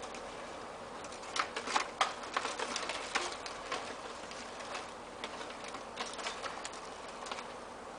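Irregular light clicks and crackles, thickest in the first few seconds and thinning out after, over a steady background hiss.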